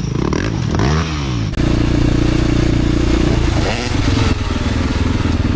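Dirt bike engines revving, their pitch rising and falling repeatedly in the first second and a half. After an abrupt change, an engine holds a steady high rev for about two seconds, then the revving varies again.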